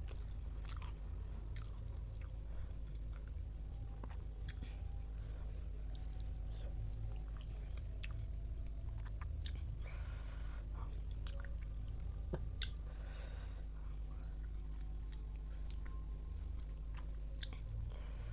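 Close-miked chewing and small mouth clicks of a person eating a meal of rice and curry, with a couple of brief rustling noises around the middle, over a steady low hum.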